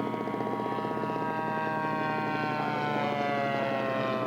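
Small piston engine of a radio-controlled model airplane running steadily in flight, its buzzing pitch sliding slowly and smoothly down.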